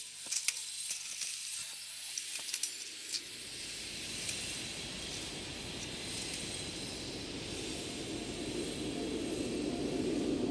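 Light scattered clicks for the first three seconds, then a steady rushing noise that swells gradually toward the end.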